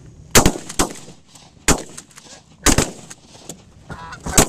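Volley of shotgun blasts, about six shots fired at irregular intervals into a landing flock of Canada geese, with a pair of shots close together near the end. Geese honk briefly just before the last shots.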